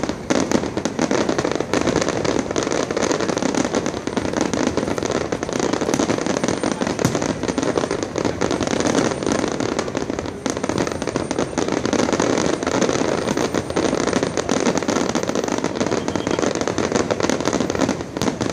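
Aerial fireworks display with many shells bursting at once: a dense, continuous crackling and popping with no gaps, steady in loudness.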